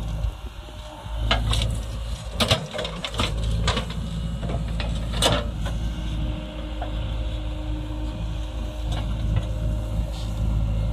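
JCB 3DX backhoe loader's diesel engine running steadily under load while the backhoe digs soil, with several sharp clanks and knocks of the bucket and arm, the loudest about five seconds in.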